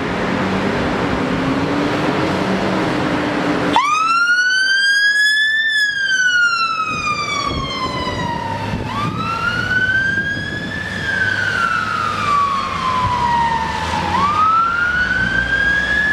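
Volvo FL fire engine's diesel engine revving as it pulls away, then its wail siren switches on suddenly about four seconds in and sweeps slowly up and down, one rise and fall about every five seconds.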